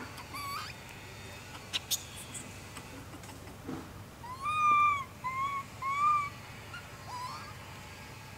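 Infant long-tailed macaque giving high, arching cries: a short rising call near the start, then three in a row in the middle (one long, two short), and another short call near the end. Two sharp clicks come about two seconds in.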